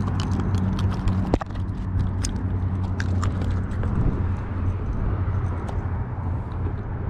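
Irregular clicks and taps from handling a freshly caught bluefish and its hook, with one sharp knock about a second and a half in, over a steady low hum.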